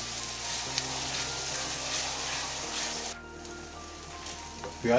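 Background music with long held notes over the sizzle of sliced onions frying in oil in a steel kadhai as they are stirred with a spatula; the onions have turned translucent on their way to golden brown. Everything gets quieter about three seconds in.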